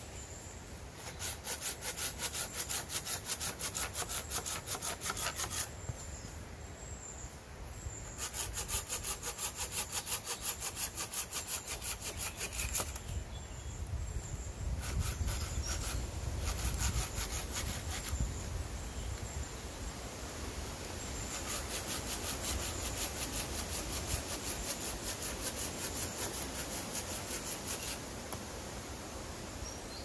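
Hand saw cutting through a dead tree branch in quick back-and-forth strokes, in four bouts with short pauses between.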